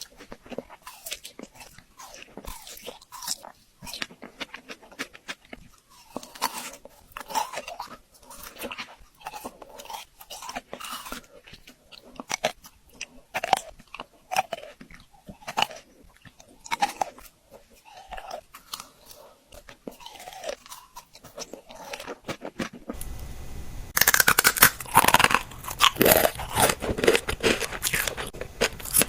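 Close-miked biting and chewing of frozen fruit: irregular sharp crunches with quieter chewing between them. About 23 seconds in, a louder, denser crackling begins.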